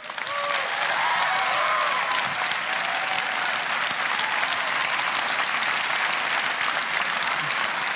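Audience applauding, swelling up within the first second and then holding steady, with a few voices calling out over it in the first few seconds.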